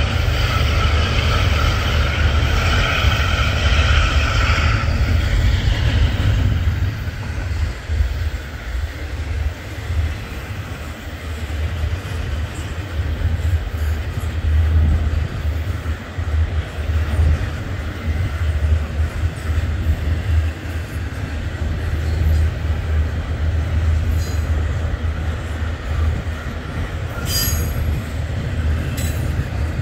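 Double-stack freight train rolling past, a steady low rumble of the cars on the rails. A high steady squeal sounds over it for about the first five seconds, and a few sharp clicks come near the end.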